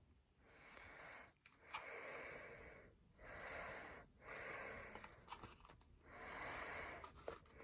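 A person breathing close to the microphone, faint: five slow breaths, each about a second long.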